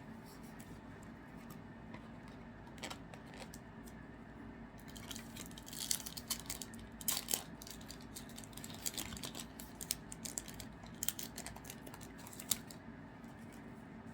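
Trading cards and foil pack wrappers being handled: soft rustling, crinkling and light clicks, busier from about five seconds in.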